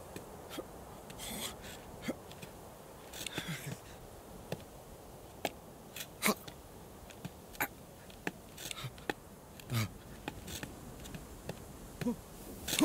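Quiet film ambience of a steady low hiss with scattered sharp clicks and ticks, broken a few times by short breathy huffs from a sheep.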